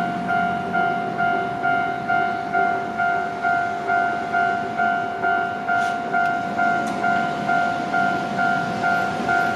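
Japanese railway level-crossing warning bell ringing: an electronic ding repeating about twice a second, each strike decaying before the next. It signals that the barriers are down for a train.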